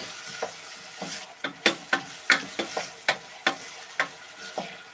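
A wooden spoon stirring and scraping in a stainless steel pot, giving about a dozen irregular knocks, while chopped onions and peppers sizzle faintly as they sauté in oil.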